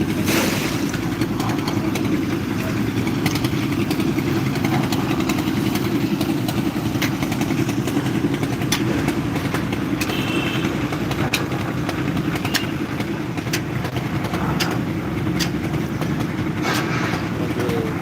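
A construction machine's engine running steadily, with scattered sharp clicks and knocks over it.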